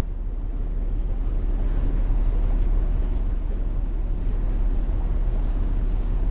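Steady low rumble and rushing noise of a ship under way at sea, heard from an open deck, heaviest in the deep bass.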